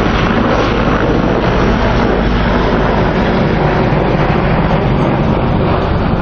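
Mil Mi-26 heavy-lift helicopter flying low past, its eight-blade main rotor and twin turbine engines making a loud, steady noise.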